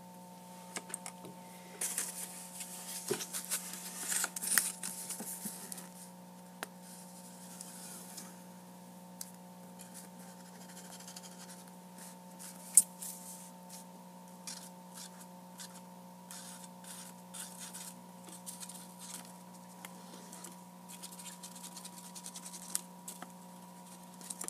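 Sheets of origami paper being handled, folded and pressed down by hand, with soft scratchy rustles and scattered light clicks, busiest in the first few seconds, and one sharp click about thirteen seconds in. A steady faint hum runs underneath.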